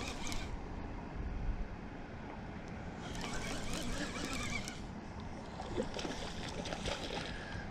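Wind on the microphone, with two bursts of splashing water as a hooked channel catfish is brought in at the bank.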